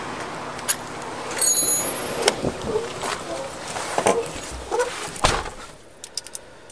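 Police patrol vehicle door being opened and handled, with knocks and gear rustle as someone climbs in, then a heavy thump of the door shutting a little over five seconds in. After the thump the road noise gives way to the quieter cab, with a few light clicks.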